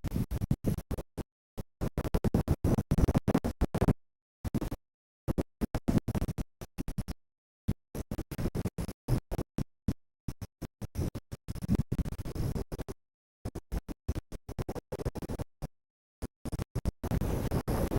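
Stuttering, chopped-up sound cut into rapid short fragments like record scratching, broken by sudden dead-silent gaps.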